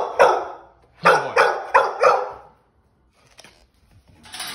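Young dogs barking for their food: one bark just after the start, then a run of four quick barks about a second in. A steady rustling hiss comes in near the end.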